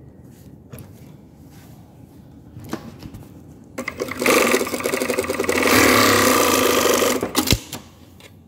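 Industrial single-needle sewing machine, after a few faint handling clicks, starts about four seconds in, sews at speed for about three and a half seconds and stops with a click. It is run with its thread twisted and snagged in the thread path, a fault that keeps the stitch tension from being set right.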